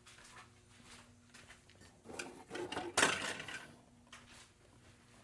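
Handling noise: light ticks and rustling of small parts being picked up and moved, rising to a brief clatter with one sharp knock about three seconds in.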